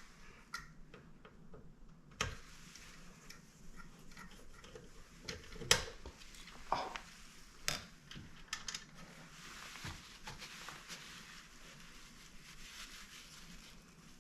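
Small steel screws and lock washers being handled: a handful of separate sharp metallic clicks, with a stretch of soft rubbing in the second half as grease is wiped off the screws.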